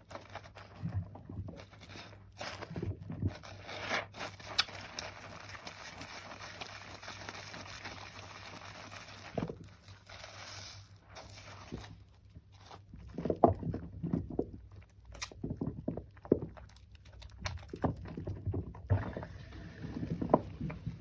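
Soaked, mushy soap being lathered and foam squeezed by hand: wet rubbing and squishing. A steady hiss runs through the first half, and irregular squelches follow in the second half.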